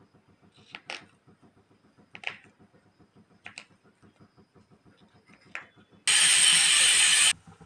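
A kitchen knife slicing through a block of paneer, about five short clicks as the blade comes down on the board. Near the end, a loud hiss starts suddenly, lasts about a second, and cuts off.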